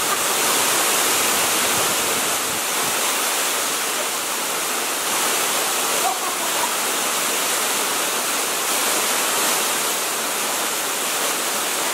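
Waterfall pouring steadily into a rock pool: a constant rushing hiss of falling water.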